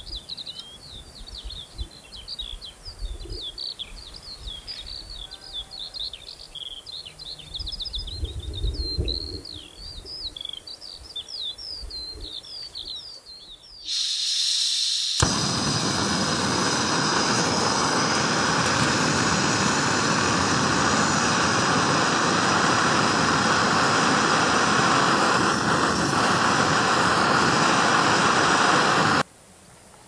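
Songbirds singing, many quick chirps, over a light low rumble. About halfway through, a loud, steady rushing hiss cuts in, which stops abruptly near the end.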